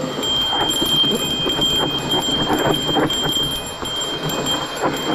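Mountain bike rolling fast downhill on a loose dirt trail: tyres crunching over dirt and small rocks, with many irregular rattles and clicks from the bike over bumps. A steady thin high-pitched tone runs under it.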